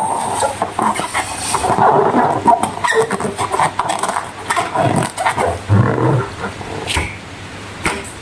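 Slime being squeezed and worked by hand: irregular wet squelches, crackles and small pops, uneven in loudness.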